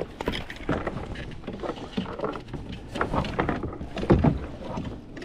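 Irregular small knocks and rustles of an angler moving about and handling gear in a fishing kayak, with water around the hull.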